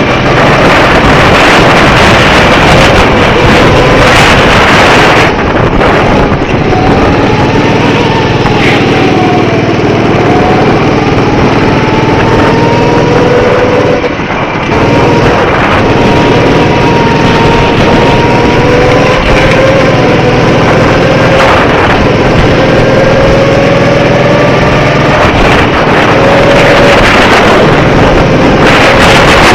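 Go-kart engine running hard, its pitch rising and falling as it revs up and eases off, under a loud, steady rush of noise.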